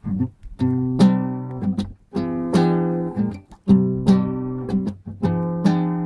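Acoustic guitar strumming chords, a new chord struck about every second and a half and left to ring between strums.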